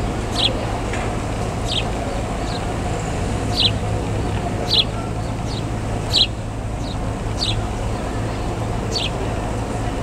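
House sparrows chirping: about ten short, high, downward-falling chirps, roughly one a second, over a steady low background rumble.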